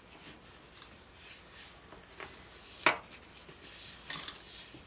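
Paper towel wiping oil paint off a wooden palette: soft scuffing and rubbing strokes, with one sharp tap about three seconds in and a quick burst of scrubbing just after four seconds.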